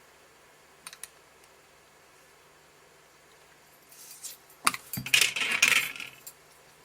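Two light clicks, then a short clatter of small hard objects about five seconds in, typical of craft tools being handled and set down on a work table.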